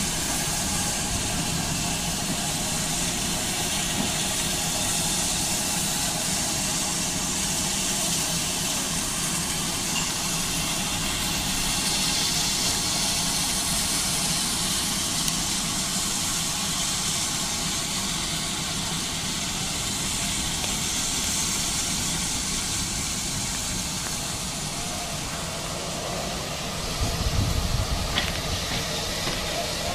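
Steam locomotive standing and venting steam, a steady hiss over a low rumble. A few heavier low thumps come near the end.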